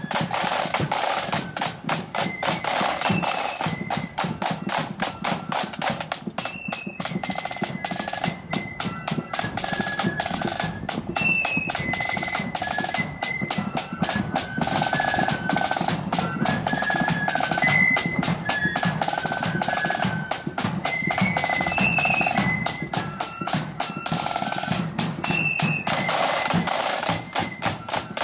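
Marching flute band playing: a tune on flutes carried over fast snare drumming and bass drum beats.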